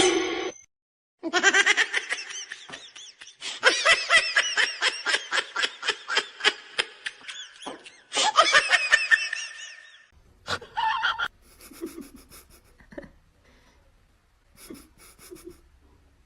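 A person laughing hard in a long run of quick, high-pitched bursts that stops about ten seconds in, followed by fainter scattered sounds.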